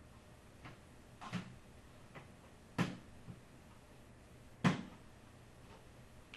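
Several separate clicks and knocks from PC expansion cards being handled and pushed into the motherboard's PCI slots inside a computer case; the two loudest come about three seconds and four and a half seconds in.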